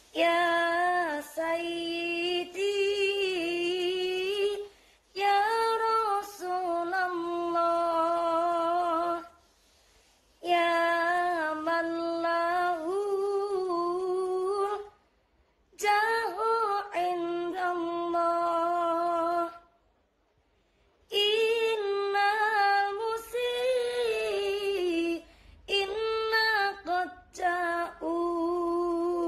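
A woman sings solo without accompaniment, an Islamic devotional song (sholawat). She sings in five phrases with short breaks between them, holding long notes and decorating them with wavering runs.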